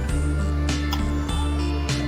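Background music: a soft instrumental track with plucked guitar over steady low notes and a regular beat.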